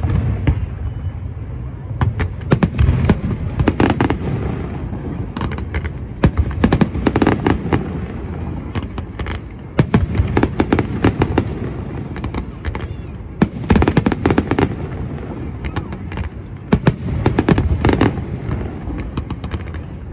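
Aerial fireworks show: shell bursts going off in quick clusters every few seconds, the bangs followed by crackling and a low rumbling echo.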